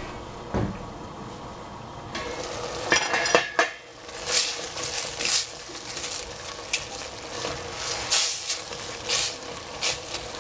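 Spatula stirring and scraping in a pan of sizzling mushrooms and zucchini. A few sharp knocks against the pan about three seconds in, then irregular scraping strokes.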